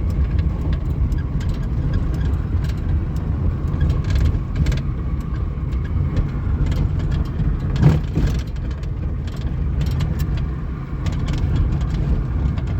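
Inside the cabin of a 1998 Suzuki Baleno driven over uneven road: steady low road and engine rumble with scattered short clicks and knocks, the dashboard-area rattle being hunted, and one louder knock about eight seconds in.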